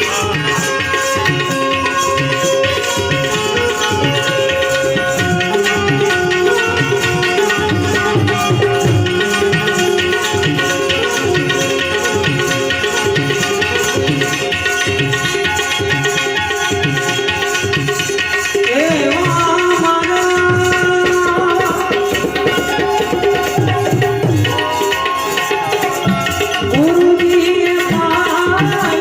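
Gujarati devotional bhajan: a harmonium plays held notes over a steady tabla rhythm, and a singer's voice comes in about two-thirds of the way through.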